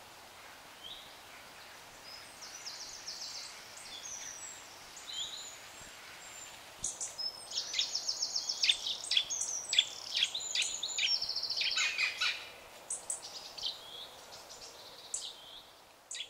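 Songbirds singing in woodland: quiet scattered calls at first, then from about seven seconds in a busier run of fast trills and sharp high notes that thins out again near the end.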